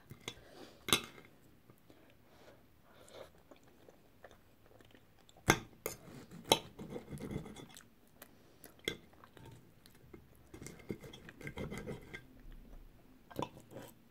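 Knife and fork scraping and clinking on a plate while cutting up a cooked breakfast, with about five sharp clinks a few seconds apart, between quieter stretches of chewing.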